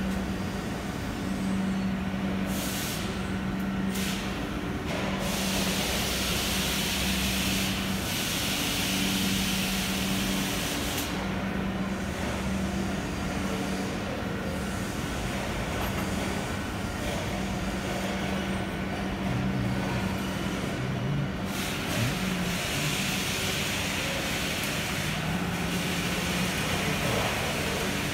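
Factory hall machinery noise: a steady low hum that cuts in and out every few seconds, with several stretches of hissing over it.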